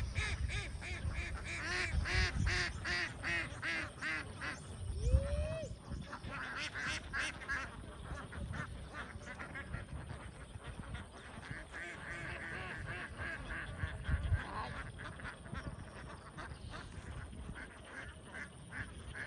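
A large flock of domestic ducks quacking as they swim across a pond, the calls coming thick and fast for the first few seconds and more scattered after.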